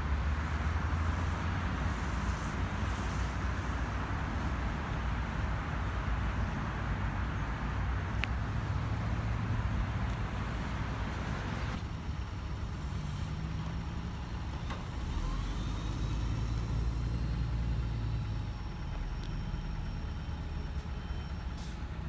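M62 diesel locomotive's two-stroke V12 engine running with a steady low drone. About twelve seconds in the sound changes abruptly, the hissy noise above it dropping away while the low engine drone carries on.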